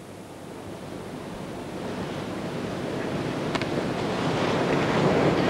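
Steady rushing hiss of an old VHS recording's background noise, growing gradually louder, with one faint click about three and a half seconds in.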